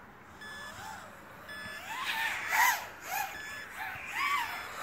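Riot250r FPV racing quadcopter's electric motors and propellers whining as it flies, the pitch rising and falling again and again as the throttle is punched and eased and the quad sweeps past.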